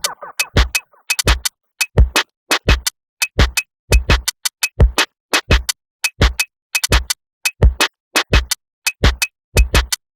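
Electronic background music: a drum-machine beat of deep kicks and sharp snare and hi-hat hits with short silent gaps between them, the synth melody mostly dropped out.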